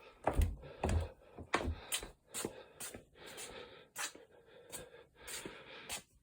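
Footsteps crunching in snow, about two steps a second.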